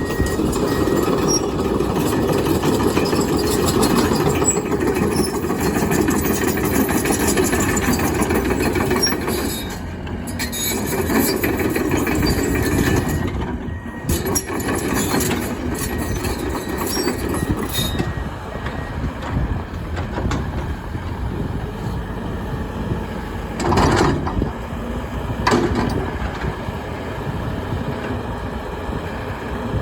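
Komatsu HB215LC-2 hybrid hydraulic excavator running, its engine and hydraulics working steadily. Two short loud bangs come about a second and a half apart near the end.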